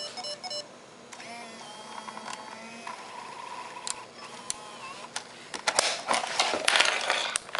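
Sony CCD-TRV138 Hi8 camcorder's cassette mechanism: a few short electronic beeps at the start, then a small motor whirring for several seconds with a shifting pitch. Near the end come a run of plastic clicks and clunks as the tape compartment is worked.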